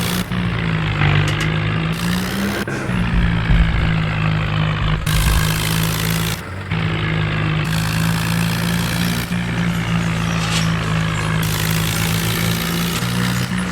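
A heavy vehicle engine running steadily and loudly, with abrupt changes in the sound every second or two, as if clips are cut together.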